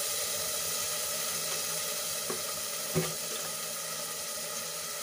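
Ground tomato purée and ginger-garlic paste sizzling steadily in hot oil in a pressure cooker pot, with one light knock about three seconds in.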